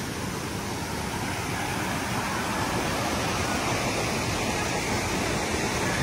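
River water rushing over rocks, a steady even hiss.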